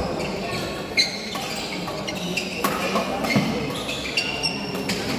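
Badminton doubles rally: rackets strike the shuttlecock in sharp hits about once a second, the loudest about a second in. Sneakers squeak briefly on the court floor between the hits.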